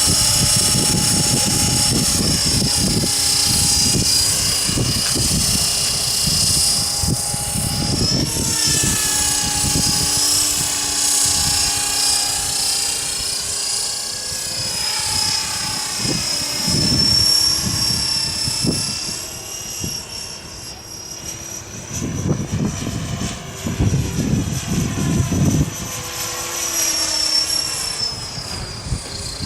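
HobbyKing HK-T500 electric radio-controlled helicopter flying in strong wind: the motor and rotor whine keeps rising and falling in pitch as it is pushed around. Gusts of wind buffet the microphone with low rumbling bursts.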